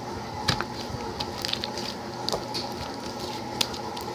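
Slime being squished and stretched by hand, making irregular small wet clicks and pops.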